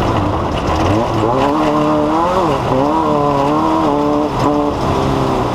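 Off-road race vehicle's engine running hard, its pitch rising and falling several times as the revs change, over a steady rush of noise.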